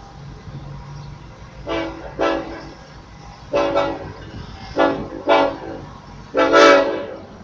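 Ferrosur locomotive 4722's air horn sounding a series of short blasts in quick pairs, then one longer blast near the end, over the low, steady rumble of the diesel locomotive.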